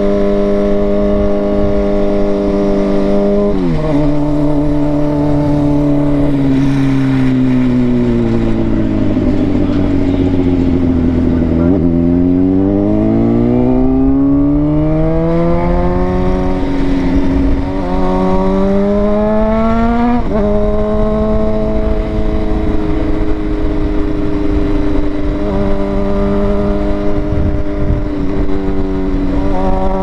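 Sportbike engine heard from the moving bike. It pulls steadily, drops suddenly in pitch a few seconds in, slows over several seconds, then revs back up. About two-thirds through, a gear change drops the pitch sharply and it settles to a steady cruise. Wind rushes over the microphone under the engine.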